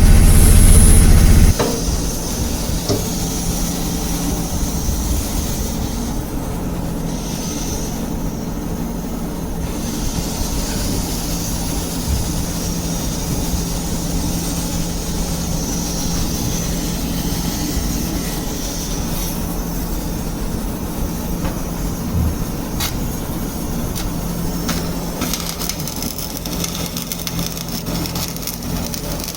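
Steady machinery noise with a constant low hum, a high hiss and scattered clicks, after a loud low rumble that cuts off about a second and a half in.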